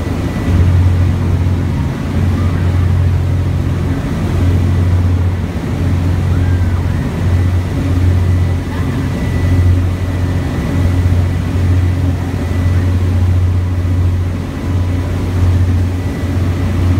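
Passenger ferry under way: the engine's loud, steady low drone, swelling and easing slightly every second or two, with the rush of the propeller wake and wind over it and a faint high whine.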